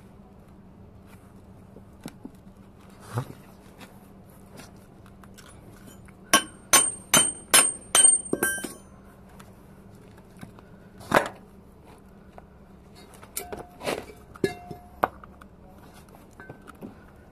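Sharp metal-on-metal knocks and clinks, a quick run of about six ringing strikes at roughly two a second in the middle, with single knocks before and after, from tools and parts being worked during a bus brake servo disassembly.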